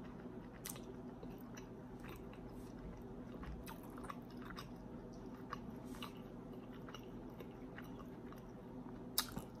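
Faint close-up chewing and crunching of fried, flour-breaded General Tso chicken, with scattered small clicks of mouth and utensils and a sharper click near the end, over a steady low hum.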